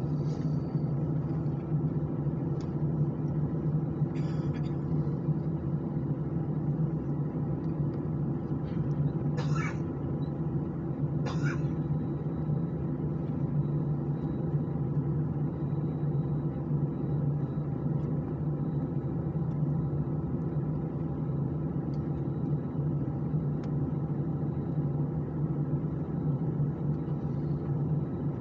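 Steady cabin hum inside an Airbus A319 holding on the runway, its engines idling, with a low even drone. Two brief faint noises come about ten and twelve seconds in.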